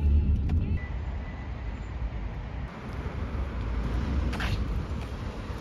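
Low road rumble of a moving car heard from inside the cabin, fading within the first second. After a cut, steady outdoor street hiss with a few short scuffs of footsteps on wet concrete.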